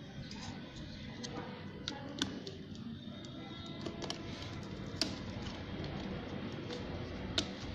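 A few sharp, small plastic clicks and taps as the motorcycle's plastic fuse holder is handled and worked open to get at the fuse, the sharpest about five seconds in and again near the end, over a steady low background hum.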